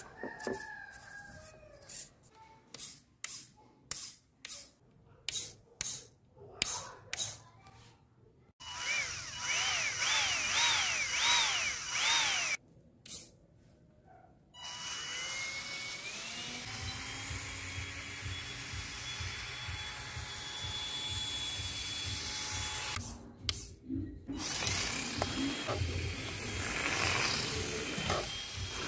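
A small electric motor. It revs up and down several times, then spins up with a rising whine and runs steadily. Before the motor runs there is a series of sharp clicks.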